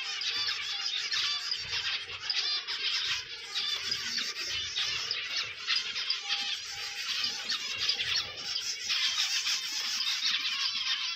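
A flock of small cage birds chattering and chirping continuously in an aviary, many overlapping quick high twitters with no pause.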